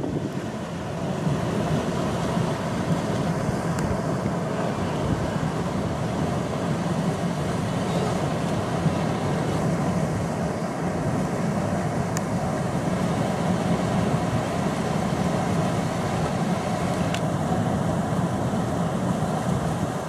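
A large wildebeest herd crossing a river: a steady din of splashing water and trampling hooves, with wind on the microphone.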